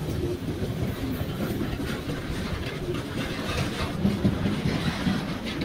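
Loaded double-deck car-transporter freight wagons rolling past on the track, their wheels clattering over the rail joints in an uneven clickety-clack over a steady rolling noise.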